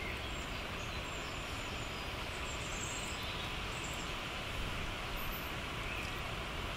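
Steady, even outdoor background rush, strongest in the low end, with no clear event standing out.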